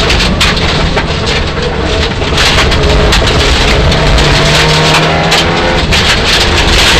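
Mitsubishi Lancer Evolution IX rally car heard from inside the cabin at full stage pace: the turbocharged four-cylinder engine revs hard, its note climbing and falling with the throttle and gear changes, over loud road and tyre noise.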